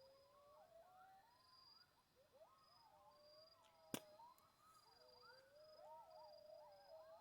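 Faint chorus of a coyote pack howling and yipping together: many overlapping, wavering calls sliding up and down in pitch. A single sharp click comes about four seconds in, over a faint high steady buzz that breaks off and resumes.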